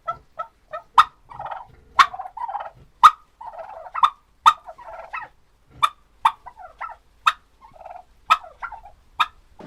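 Turkeys calling: gobbling chatter with sharp, clipped call notes about once a second.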